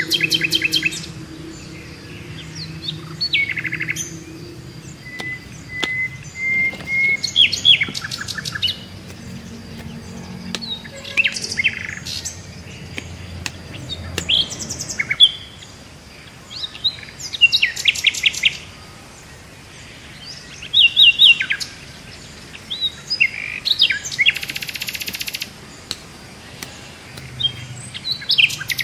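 Birds singing: bursts of high chirps and fast trills that come every few seconds, with a thin, steady whistle in between.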